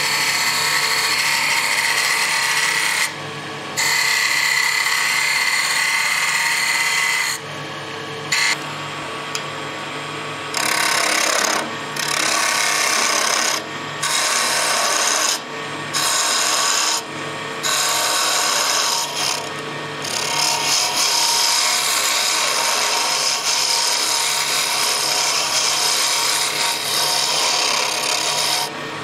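Wood lathe running with a steady low hum while a gouge cuts the spinning spindle blank, a loud rushing hiss of shavings. The cutting stops and restarts many times as the tool is lifted off and set back on, then runs unbroken over the last several seconds.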